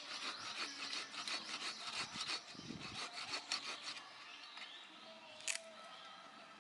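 Rapid, irregular rasping strokes of something rubbing or scraping, for about four seconds. They give way to a faint steady tone, with one sharp click near the end.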